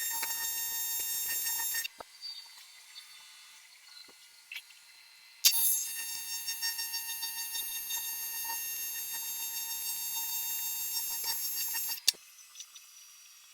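AC TIG welding arc on aluminum buzzing steadily. It stops about 2 seconds in, strikes again with a sharp crack about 5 seconds later and buzzes for about six and a half seconds before stopping again.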